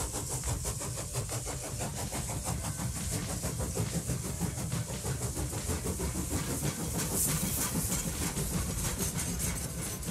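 Battery-powered TrackMaster toy train engines running around plastic track. Their small motors give a steady whir, with rapid clicking as the wheels run over the track.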